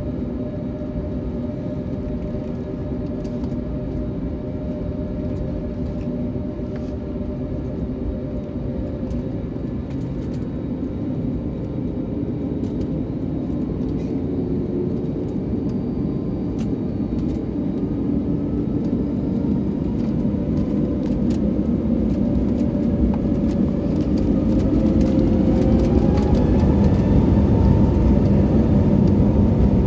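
Jet airliner's engines heard from inside the cabin: a steady rumble with a low whine. About two-thirds in, the whine rises in pitch and the rumble grows louder as the engines spool up to takeoff thrust.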